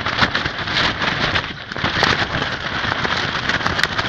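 Strong, gusty wind buffeting a winter ice-fishing tent, the fabric rattling and crackling in a dense, continuous patter.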